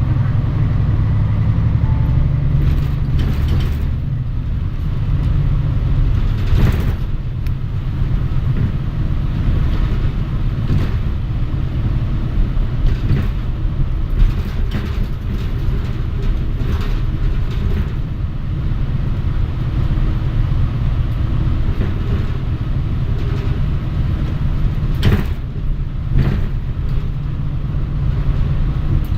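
Cabin sound of a Mitsubishi Fuso Aerostar KC-MP717 city bus under way: a steady low engine and road drone with the heater running, broken by a few sharp knocks and rattles from the body, the loudest about 7 and 25 seconds in.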